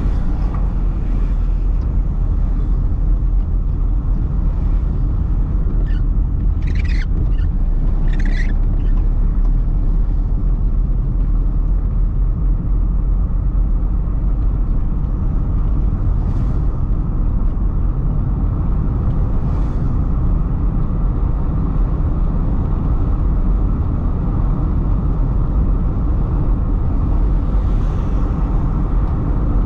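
Car driving on the road: a steady, loud, low rumble of engine and tyre noise. Two brief high-pitched sounds come about seven and eight seconds in.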